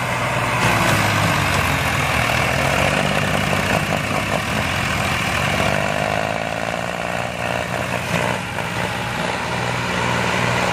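Diesel tractor engines, a Standard 345 and a John Deere 5310, running hard under heavy load as the two chained tractors pull against each other. The engine note stays loud and steady throughout.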